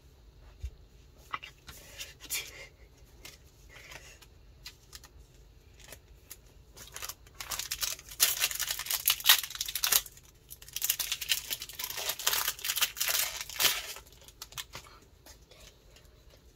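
Foil booster pack wrapper being torn open and crinkled, in two loud crackling bursts about seven and eleven seconds in, after a few light handling clicks.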